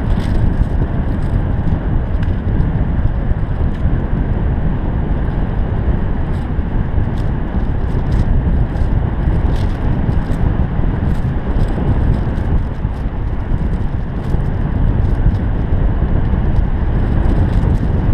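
Wind from a paraglider's airspeed buffeting the camera microphone: a steady, loud low rumbling rush, with scattered light ticks.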